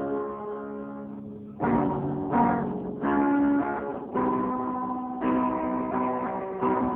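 Clean electric guitar playing chords that are struck and left to ring, with a new chord about every second.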